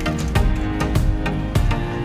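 Music with a steady drum beat over held string and instrument notes.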